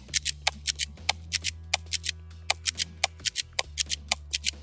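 Tokyo Marui KSG gas pump-action airsoft shotgun being pumped and fired in quick succession: a rapid, uneven run of sharp clicks and pops, several a second, often in close pairs. Background music with a steady bass sits underneath.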